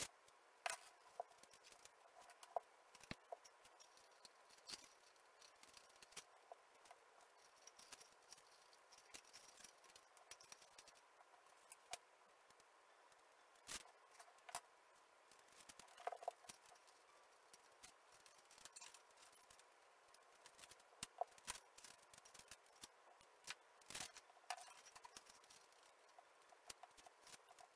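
Near silence broken by scattered faint clicks, taps and short rustles of sellotape and a cardboard kitchen-roll tube being handled and taped to a wall.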